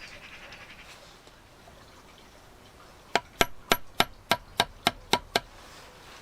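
A hammer tapping on metal: nine quick, sharp, ringing taps, about four a second, starting about halfway through.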